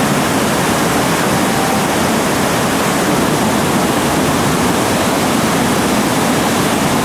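Steady, loud rush of whitewater pouring through Bull Sluice, a boulder-choked rapid on the Chattooga River.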